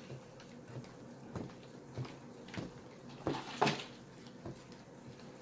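Scattered light clicks and knocks from handling a bottle of liquid laundry detergent and the mixing containers, with a louder double knock about three and a half seconds in.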